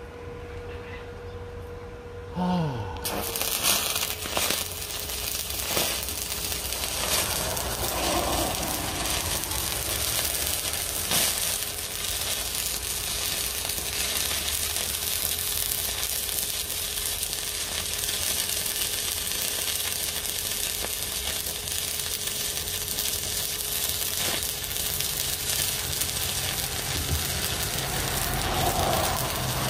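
Stick arc welding with a 2.5 mm electrode: the arc strikes about three seconds in and then crackles and sizzles steadily, like frying, over a steady hum, as a filler bead is run over an earlier weld.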